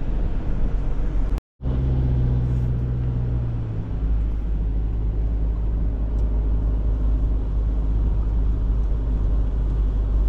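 Tow vehicle's engine and tyres running steadily on beach sand while towing a caravan, a low rumble. The sound cuts out for a moment about a second and a half in, and the engine note shifts about four seconds in.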